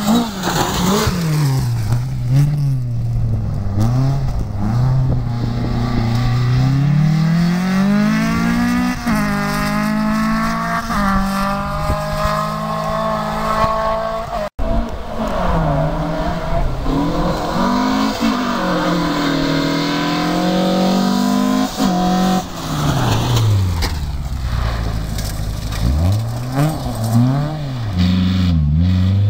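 Rally cars at full speed on a gravel special stage, their engines revving high and dropping back again and again through the gears. One car passes close, then a brief dropout about halfway through, then another car comes along and revs hard past.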